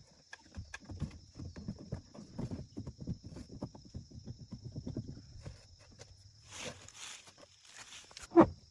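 A quick run of light knocks and clatters for about five seconds, then a few short scraping rushes and a brief, loud squeak near the end, over a faint steady high whine.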